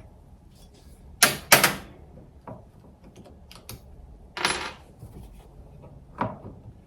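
A hand tool scoring a rubber mud flap: a few short scraping strokes, the loudest two close together about a second in, with lighter scrapes and clicks after.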